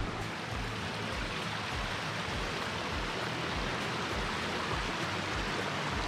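Steady rushing noise of creek water flowing, even and unbroken.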